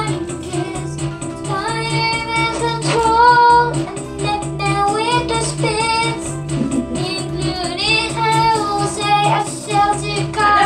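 A girl singing into a microphone over an electronic keyboard's accompaniment, which keeps a steady repeating bass beat under the sung melody.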